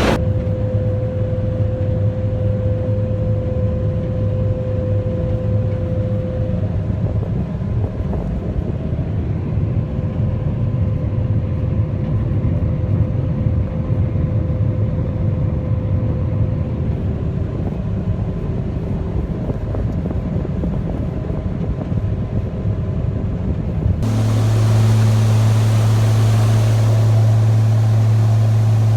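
Farm machinery engine running steadily: a low hum with a faint steady whine above it. About 24 s in the sound changes abruptly to a steadier, deeper engine hum.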